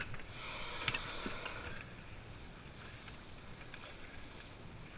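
Water splashing and lapping against a small inflatable boat, louder in the first two seconds, with one sharp click about a second in.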